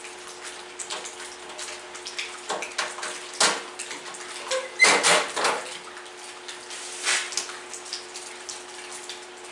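Irregular clicks, knocks and clatter of hands working on the garden tractor's seat-pan area, the loudest burst about halfway through, over a steady electrical hum.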